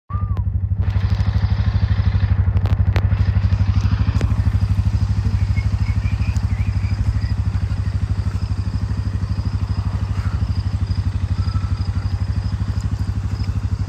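A motor running steadily with a loud, fast-pulsing low hum that starts abruptly, with a few faint clicks over it.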